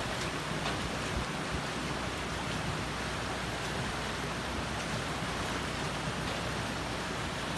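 Shallow river water rushing steadily over rocks, an even, unbroken sound of flowing water.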